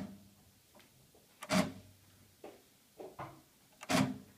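Akai GX-75 cassette deck's transport mechanism giving sharp knocks at uneven intervals, each followed by a short low motor hum. This is the weird noise that makes the owner think one of the deck's motors is failing.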